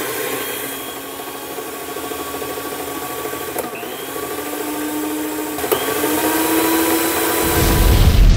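Old electric mixer's motor running with a steady whine, its pitch hitching briefly twice; it runs even at the zero setting, as its on-off control does not work. A deep boom sound effect comes in near the end and is the loudest part.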